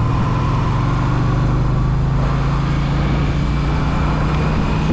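Motorcycle engine running at a steady cruising speed, heard from on the bike, with a constant hiss of wind and road noise.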